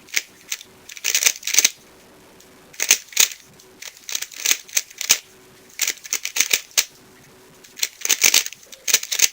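Guhong 3x3 speedcube being turned fast by hand: quick runs of clacking layer turns in bursts, broken by short pauses.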